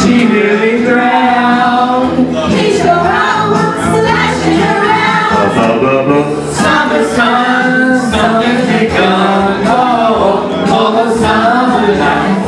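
Loud music with several voices singing together.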